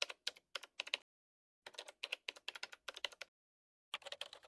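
Quick, light clicking like typing on a keyboard, in three short runs: the first stops about a second in, the second goes from just past a second and a half to just past three seconds, and the third starts near the end. There is dead silence between the runs.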